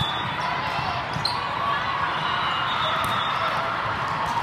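Indoor volleyball play in a large, echoing hall: a few sharp hits of the ball over a steady din of voices and crowd murmur.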